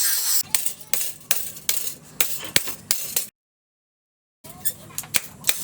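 Irregular sharp metallic taps and clinks, several a second, of metal tools striking metal during work on the blade, over a faint low hum. About half a second in, a dense hiss cuts off, and after about three seconds the sound drops out entirely for about a second before the taps resume.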